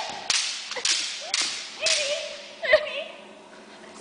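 A wooden cane swung hard through the air in quick strokes, four or five whooshes about half a second apart, then a short cry from a voice near the end.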